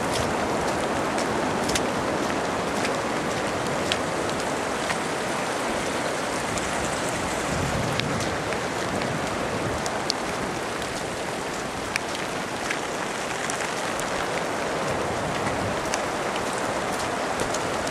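Steady rain falling, with a scattered few sharper drop ticks.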